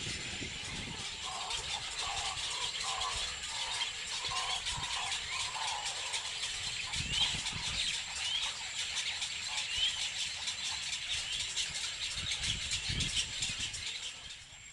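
Several wild birds calling: a series of lower repeated notes for the first half, then a few short rising chirps, over a steady high hiss and whine.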